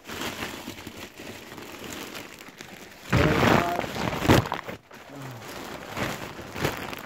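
Christmas wrapping paper rustling and crinkling as a present is unwrapped by hand, with a brief vocal sound about three seconds in.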